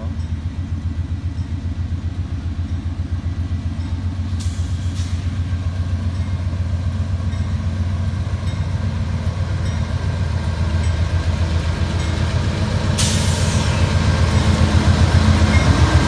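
Diesel locomotives of a four-unit freight train approaching and passing at close range, a steady, pulsing low engine rumble growing louder toward the end. Two short bursts of hiss cut through, one about four seconds in and a longer one about thirteen seconds in.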